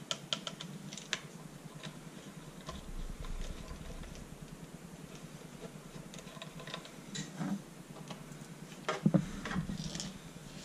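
Light scattered clicks and taps of plastic and metal parts as the disassembled Larc M19 BB machine gun's tube and barrel assembly is handled, with a louder cluster of knocks near the end.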